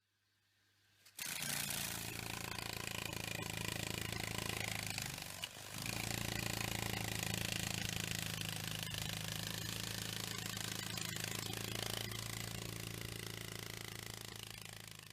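Beetle buzzing in flight: a steady low drone with many overtones. It starts about a second in, dips briefly around the middle, and fades near the end.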